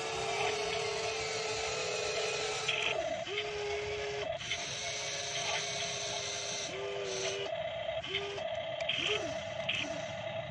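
Radio-controlled Kobelco SK200 model excavator's motors whining as it works its boom and drives its tracks up a muddy bank. The whine comes in spurts of one to three seconds, sliding up in pitch as each one starts and down as it stops.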